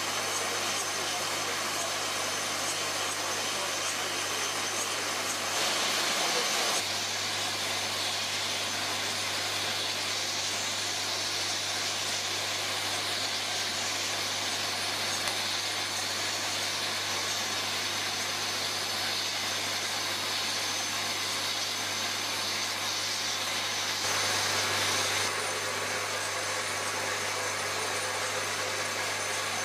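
Rotary bottle unscrambler running, a steady machine hum with an even hiss as it sorts small plastic bottles, briefly louder twice.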